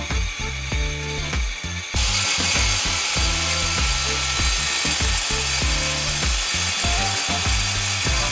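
Background music with a steady beat; about two seconds in, an angle grinder starts cutting, adding a loud, steady high hiss that continues.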